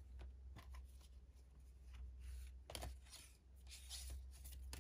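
Faint rustling and tapping of a card deck being picked up and handled, over a steady low hum.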